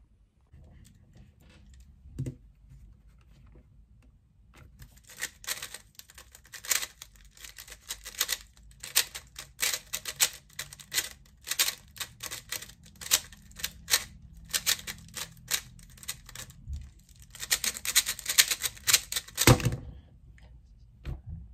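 A 3x3 speed cube being turned fast by hand, its layers clacking in rapid bursts of clicks for about fifteen seconds starting about four seconds in. The clicking ends with a single thump.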